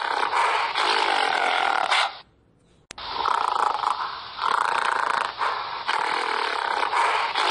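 Gorilla calling in rough, noisy vocalisations. The sound cuts off about two seconds in, and after a short silent gap ending in a click it starts again.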